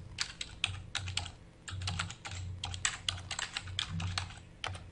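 Typing on a computer keyboard: a run of quick, uneven key clicks.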